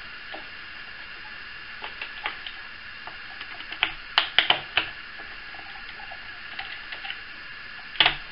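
Scattered light clicks and taps of a small screwdriver loosening the centre screws in the plastic body of a Syma X8C quadcopter. The loudest come in a quick cluster about halfway through, with one more sharp click near the end.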